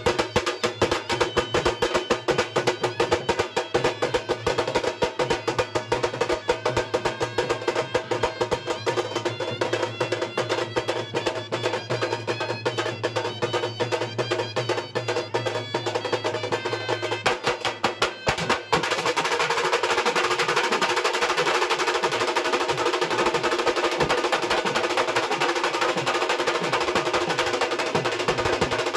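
Khalu baja band: barrel drums beaten in fast, driving stroke patterns under a wavering wind-instrument melody. About two-thirds of the way through, the melody stops abruptly and the drums go into a continuous rapid roll, slightly louder and steadier.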